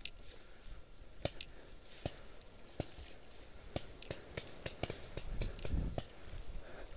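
Footsteps on a forest path, with irregular sharp ticks and snaps from twigs and brushing branches close to the body-worn microphone, and a brief low rumble near the end.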